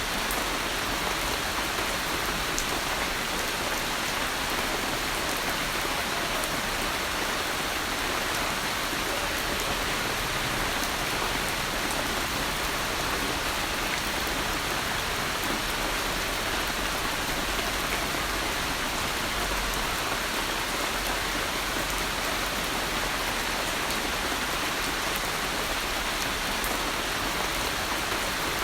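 Steady rain falling on a surface, an even hiss of many drops with faint scattered ticks of single drops; no thunder.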